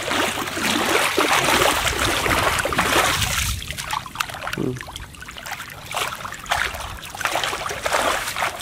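Shallow muddy water splashing and sloshing as a person wades and grabs a fish with his hands: nearly continuous splashing for about the first three and a half seconds, then separate splashes, the last as a foot kicks up water stepping out.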